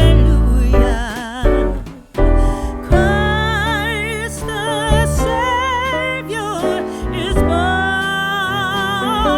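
Music: a sung song with a voice holding long notes with vibrato over piano and sustained bass notes, briefly dropping out about two seconds in.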